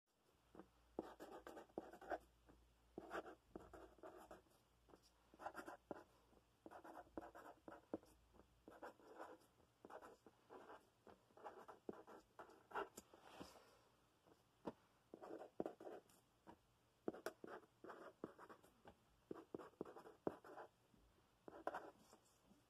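A pen writing on a sheet of paper on a clipboard. It makes faint short strokes in quick clusters, letter by letter, with brief pauses between words.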